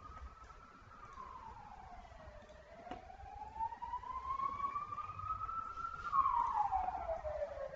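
Emergency vehicle siren wailing, its pitch sliding slowly down, up and down again. It grows louder near the end.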